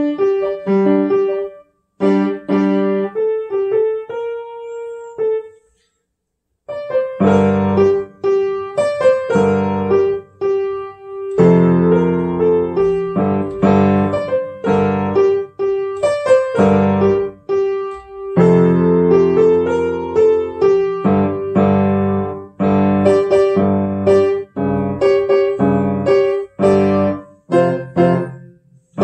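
Acoustic upright piano played solo, a traditional tune picked out in separate notes. The playing stops for about a second around six seconds in, then resumes with fuller chords in the bass.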